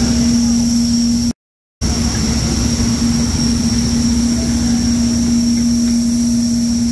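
Steady drone and high-pitched whine of a parked airliner and ground equipment on an airport apron, with a low rumble beneath. The sound cuts out completely for about half a second near the start.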